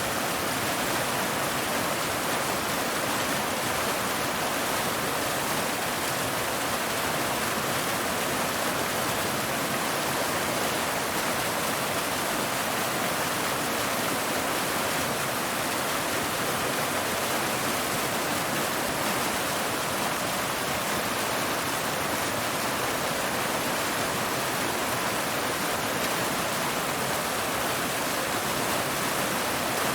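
Waterfall, water pouring steadily over rocks in an even, unbroken rush.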